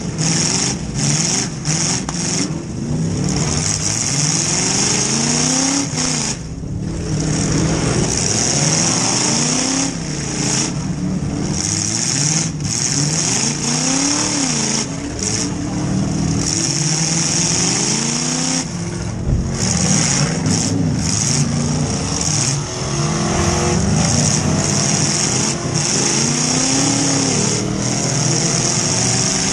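Demolition derby car's engine revving up and down again and again as it is driven, heard from inside the stripped-out cabin, with a loud high hiss that cuts in and out over it.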